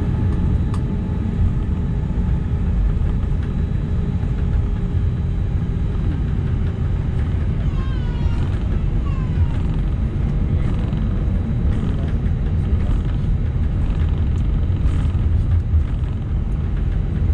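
Cabin noise of an Airbus A319-111 taxiing: a steady low rumble from its CFM56 engines at taxi power and the airframe rolling over the taxiway.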